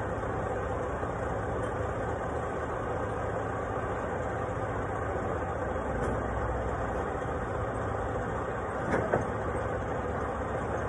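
Vehicle engine running steadily, with a couple of short knocks about nine seconds in.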